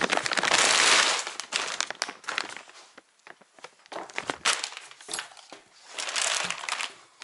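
Thin plastic packaging bag crinkling and rustling as a new chainsaw is pulled out of it. The rustling is loudest for the first two seconds or so, then comes in shorter bursts.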